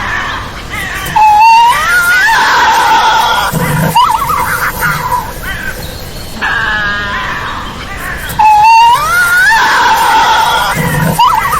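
Tasmanian devil screeching and growling: harsh, rising and falling cries. The same run of calls plays twice.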